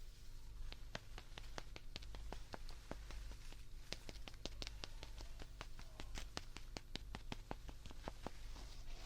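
A rapid, irregular run of light, sharp clicks or taps, several a second, over a steady low hum.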